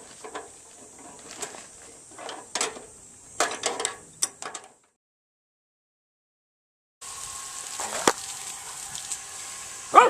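Metal clinks and taps of a wrench working the loose water-hose fitting on a portable propane water heater. It cuts to dead silence for about two seconds, then a steady outdoor background with a faint hum and a single click.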